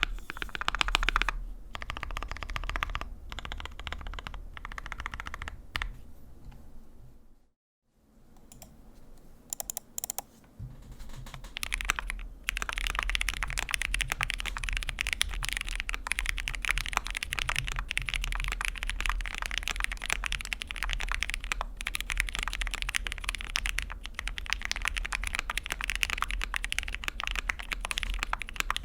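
Fast typing on a mechanical keyboard with lubed linear switches in an aluminium-plate board with PBT keycaps, a rapid run of key clacks. The first stretch is on Tealios v2 switches. After a brief gap near eight seconds and a few scattered keystrokes, steady fast typing resumes about twelve seconds in on Gateron Yellow full milky-housing switches.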